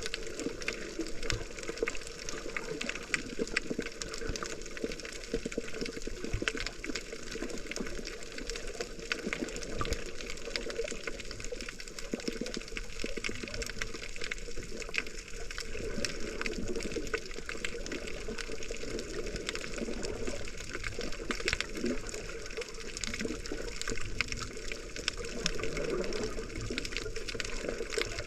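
Muffled water noise from a GoPro camera while snorkeling: a steady rush of water with many small crackles.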